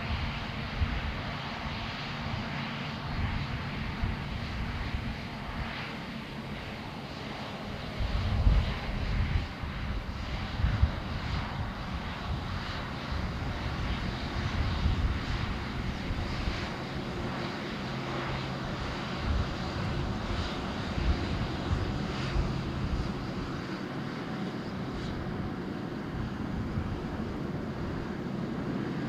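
Jet airliner's engines running at takeoff power: a loud, steady rushing noise over a deep, uneven crackling rumble. It cuts in suddenly at the start.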